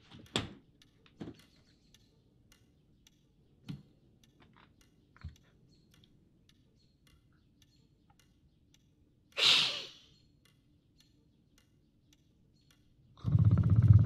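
A front door pushed shut with a sharp latch knock, then faint scattered ticks and a few small knocks. About nine and a half seconds in comes a short rustling rattle as venetian blind slats are pulled apart, and near the end a louder low noise lasting about a second.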